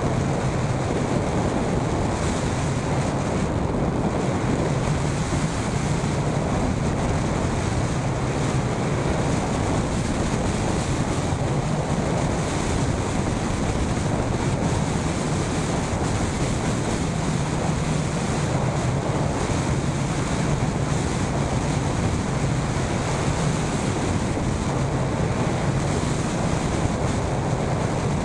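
Steady rush of wind over the microphone of a camera on a hang glider in flight.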